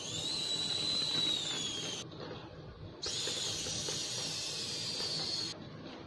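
Two high-pitched whistles with a hiss, each two to three seconds long and starting and stopping abruptly. The first holds its pitch and then dips near its end. The second falls steadily in pitch.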